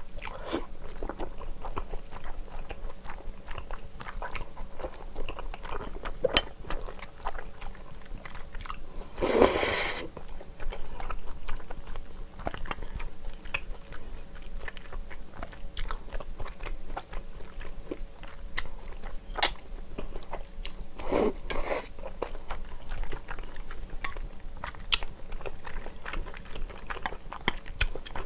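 Close-miked eating of spicy tteokbokki with flat glass noodles: steady wet chewing with many small mouth clicks. There are two louder slurps, each about a second long, around ten and twenty-one seconds in.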